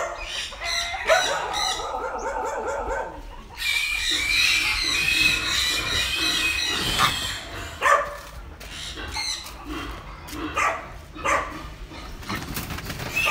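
Hybrid wild boar piglets squealing as they are handled and put into a wire-mesh cage. A long, shrill squeal comes about four seconds in. Sharp knocks and rattles of the wire cage follow in the second half.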